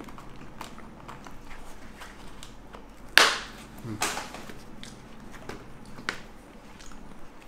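Hands working inside a motorcycle helmet to fit a Bluetooth intercom: scattered small plastic clicks and rustling, with two louder short scuffs about three and four seconds in.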